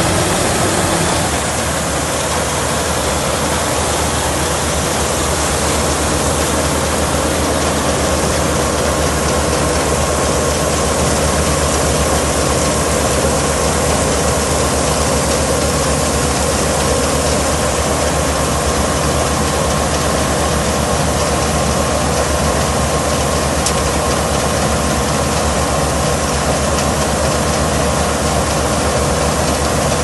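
Tracked combine harvester running while unloading wheat: its engine and grain-unloading auger make a steady mechanical noise with a constant whine as the grain pours out of the spout.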